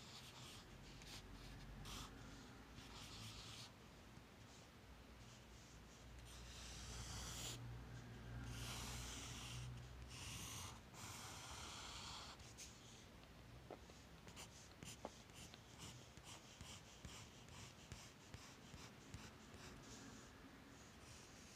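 Graphite pencil scratching faintly across sketch paper as lines and short strokes are drawn, loudest about six to eleven seconds in.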